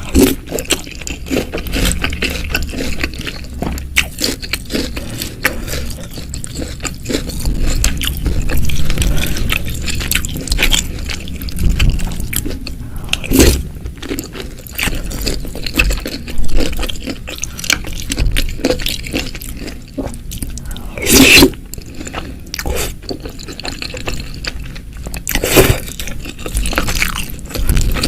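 Close-miked eating sounds of meatball soup with noodles and toppings: wet chewing, crunching and slurping, with utensil scrapes against the bowl and three louder sounds scattered through.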